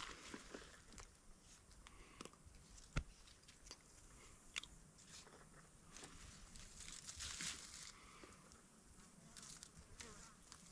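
Near silence: faint outdoor background with a few light clicks and a soft rustle, the sharpest click about three seconds in.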